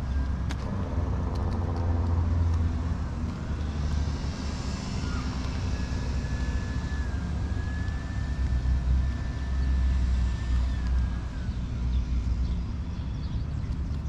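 Road traffic: a motor vehicle passing, with a steady low rumble and a swell of tyre noise in the middle.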